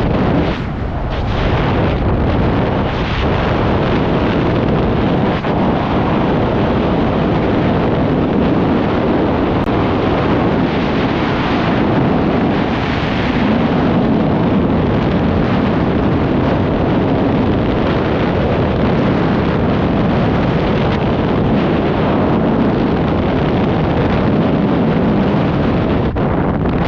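Loud, steady rush of freefall air blasting across the camera microphone.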